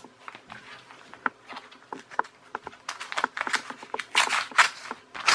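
Postal packaging being handled and opened: crinkling and rustling with scattered small clicks, sparse at first and busier and louder in the second half.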